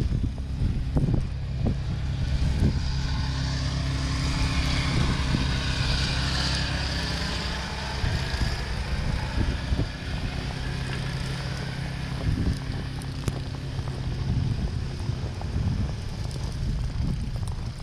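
A vehicle driving past, its tyre hiss swelling and fading about six seconds in, over a steady low rumble of wind on the microphone.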